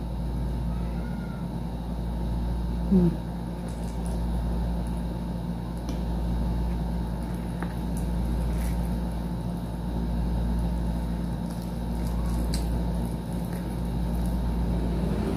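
Biting into and chewing glazed fried chicken, with faint clicks now and then, over a steady low background rumble. A short hum from the eater comes about three seconds in.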